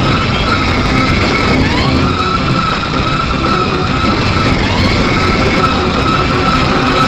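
Loud siren wail, its pitch sweeping up and then holding, repeating about every three seconds over a heavy, steady rumble.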